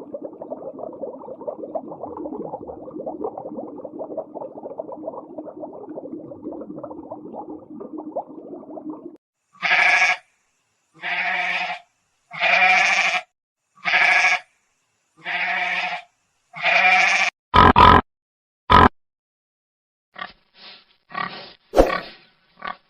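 A run of different farm-animal calls. First comes about nine seconds of rough, continuous grunting. Next are six evenly spaced pitched calls, each under a second long and about a second and a half apart. Near the end, two sharp loud cracks are followed by a quick series of short calls.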